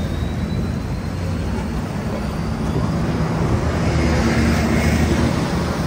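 City street traffic running steadily with a low rumble, swelling louder about four seconds in.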